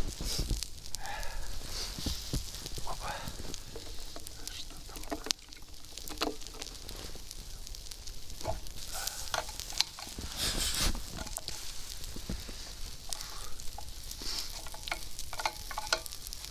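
Log fire crackling, with many small irregular snaps and pops over a soft hiss.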